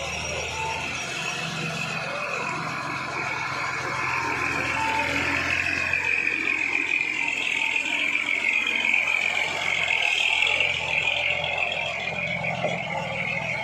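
Loaded Nissan Condor truck's turbo diesel engine running as the truck pulls slowly past at close range, getting louder toward the middle and easing near the end. A high, wavering whine sounds over it throughout.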